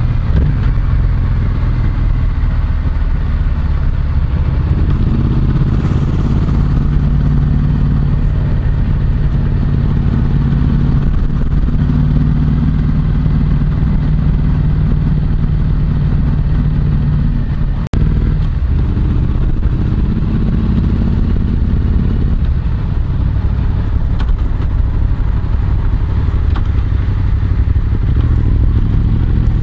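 Yamaha MT-07's parallel-twin engine running through an SP Tadao Power Box full aftermarket exhaust while riding, its note shifting in pitch a few times with throttle. It is heard close up from a microphone in the rider's back pocket, and the sound drops out for a split second about two thirds of the way through.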